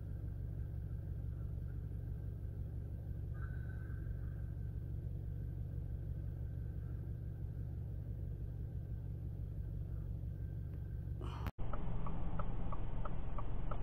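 Steady low rumble of a car's road and engine noise heard from inside the moving vehicle. Near the end it cuts suddenly to a louder cabin sound with a quick, steady ticking, about two to three ticks a second.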